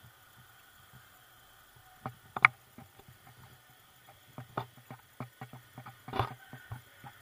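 Irregular clicks and knocks from a bicycle rattling along a paved road, with one sharp knock about two and a half seconds in and a run of smaller ones in the last few seconds, over a faint steady high hum.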